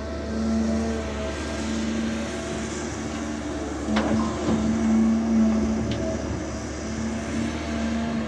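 Hydraulic excavator's diesel engine running under load, its tone rising and falling as it works. There is a sharp metallic clank about four seconds in and a lighter one about two seconds later.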